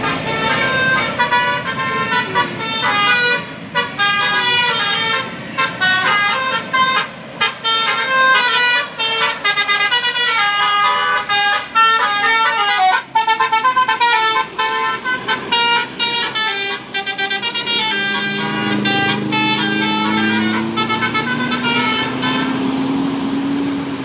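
Tour bus telolet horn playing a fast tune of short notes that jump up and down in pitch, with brief gaps between them. A low tone rises slowly in pitch over the last few seconds.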